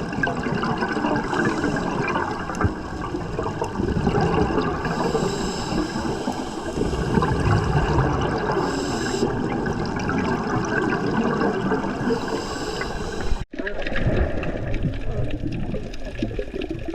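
Sea water rushing and splashing steadily, as around a sailing yacht under way. About three-quarters of the way through it drops out for an instant and then carries on.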